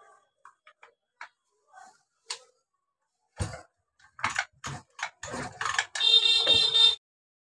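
Small clicks and knocks of tools and metal parts being handled during chainsaw reassembly, growing louder after a few seconds, then a harsh, pitched noise lasting about a second that cuts off abruptly.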